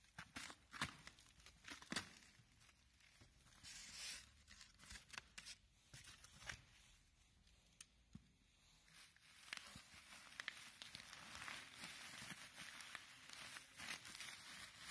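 Plastic stretch wrap and packing tape on a cardboard box being cut and torn open, with a few sharp clicks, then bubble wrap crinkling as it is pulled back from the contents.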